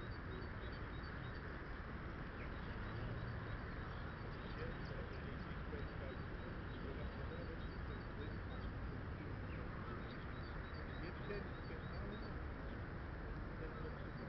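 Outdoor ambience: wind buffeting the microphone, with faint high bird chirps repeating at an even pace and distant voices.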